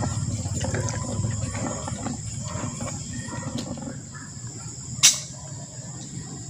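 Insects chirring steadily in a high, thin tone, over a low rumbling noise that eases after about four seconds. About five seconds in comes a single sharp snap.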